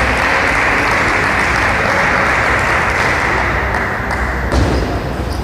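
Crowd in a large hall applauding after a point, a dense steady clapping that dies down about four seconds in, with a single thump shortly after.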